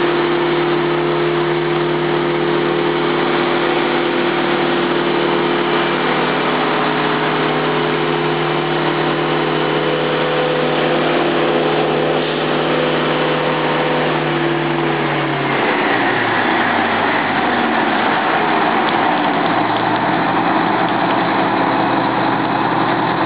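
1994 Oshkosh airport crash truck's diesel engine running at steady high revs to drive the fire pump, with a constant hiss of water spraying from its turrets. About 15 seconds in, the revs fall away over a couple of seconds and the engine settles at a lower speed.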